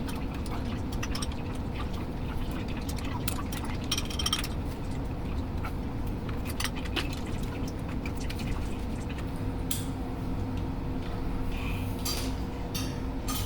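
Scattered metallic clicks and clinks of an Allen key and bolts while the front brake caliper is unbolted from an electric dirt bike, over a steady low hum.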